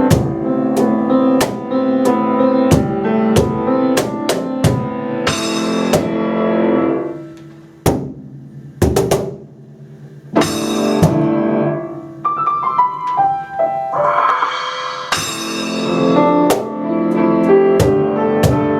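Live piano and percussion playing an upbeat instrumental piece, with steady rhythmic drum strokes and occasional cymbal crashes. About a third of the way through it drops to a thin, quiet passage of sparse hits, then builds back to full playing.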